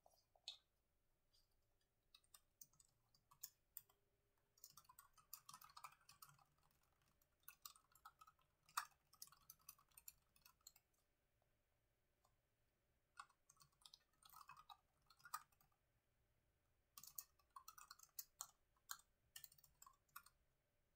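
Faint typing on a computer keyboard: quick runs of key clicks in several bursts, with short pauses between them.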